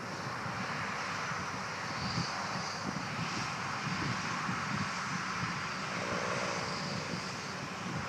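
Distant combine harvester running steadily through a corn field, a constant engine and threshing drone, with wind buffeting the microphone.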